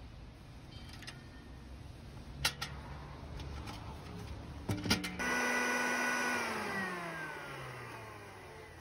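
A few sharp clicks and knocks, then an electric grain mill's motor whines steadily and starts winding down about a second and a half later, its pitch falling as it coasts toward a stop.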